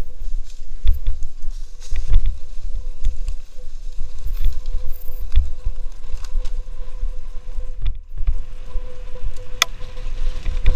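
Wind buffeting a helmet-mounted camera's microphone while a mountain bike rattles and jolts over a bumpy forest trail at speed, with a thin steady whine underneath. A sharp click stands out near the end.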